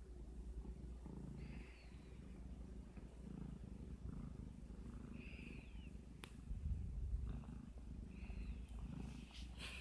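Domestic cat purring in a low, pulsing rhythm while it kneads a blanket, with a few short, higher sounds every few seconds.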